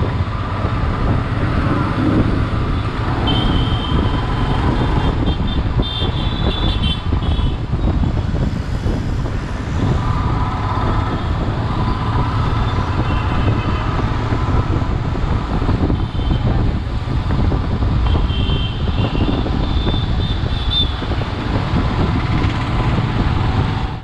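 Motorcycle engine running under way, with wind rushing over the microphone and the noise of town traffic around it. Other vehicles' horns honk several times in the background.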